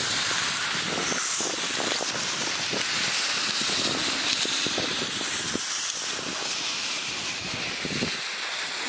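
Steady hiss of wind across open lake ice, with irregular soft crunches of footsteps in snow.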